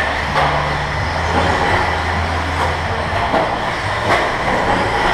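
Radio-controlled 2WD buggies racing on an indoor dirt track: continuous motor and tyre noise over a steady low hum, with a few sharp knocks.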